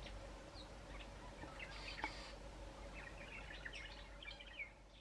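Faint outdoor birdsong: scattered short chirps and twitters from birds in the trees, over a soft steady background hiss.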